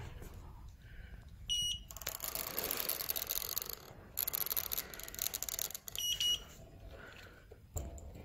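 Handheld inkjet printer giving two short, high beeps about four and a half seconds apart. In between comes a rough rubbing noise as the printer is slid across the side of a steel drum.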